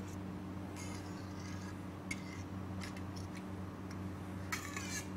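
Small metal knife scraping and ticking against a stainless-steel cake frame in short light strokes as chocolate is cleaned off its rim, with a longer, louder scrape near the end. A steady low hum runs underneath.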